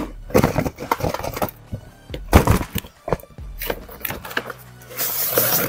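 Cardboard toy box with a clear plastic window being handled and opened: scattered knocks, clicks and crinkles of cardboard and plastic, with a longer scraping rustle near the end.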